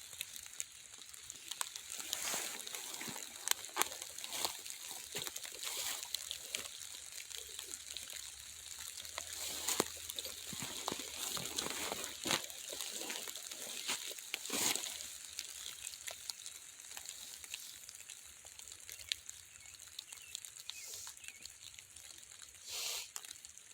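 Rain falling hard in woodland, an even hiss scattered with many short taps and crackles.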